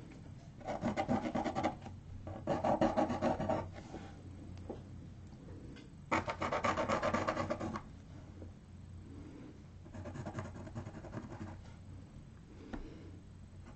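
Pencil scratching on paper in quick back-and-forth shading strokes. It comes in four bursts of a second or two each, the strongest about six seconds in, with quieter rubbing between them.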